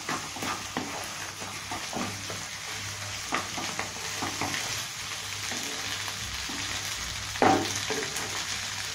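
Pav bhaji vegetable mash sizzling in butter in a nonstick kadai while a wooden spatula stirs and scrapes it, in irregular strokes over a steady sizzle. One stroke near the end is louder.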